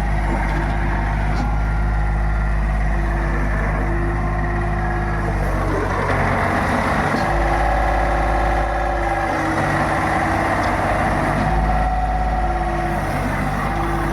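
Orteco 1000HD pile driver's engine running steadily, its hum shifting in pitch a few times, with no hammer blows heard.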